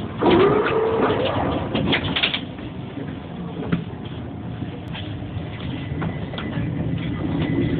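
Inside a tram standing at a stop: a steady low rumble and hum with scattered clicks and knocks, opened by a short tone that rises and then holds for about a second. The rumble grows a little louder towards the end.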